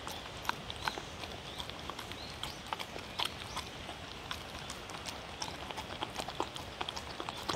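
A dog chewing and crunching chopped raw bell pepper and zucchini from a paper plate: irregular crisp clicks and crunches, a few a second.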